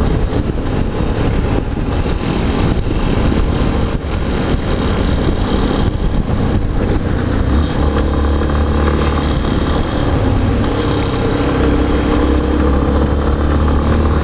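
Yamaha XTZ 250 Ténéré's single-cylinder engine running as the bike rides along, under a steady rush of wind and road noise. From about halfway the engine note comes through more clearly and steadily.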